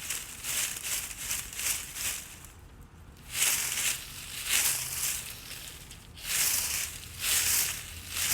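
Noisemaker paper being shaken and waved, making repeated crinkly swishing rustles, with a brief lull about three seconds in before stronger swishes.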